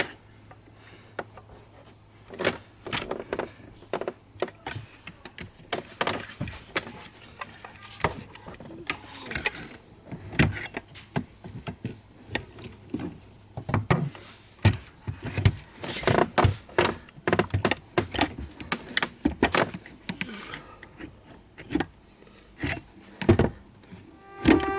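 Irregular clicks and knocks of parts and tools being handled during repair work. A short high chirp repeats about three times a second behind them, and a low steady hum stops about halfway through.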